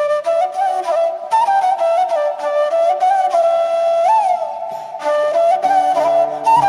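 Background music led by a flute playing a flowing melody with slides and ornaments between notes. Softer low held notes join in about five seconds in.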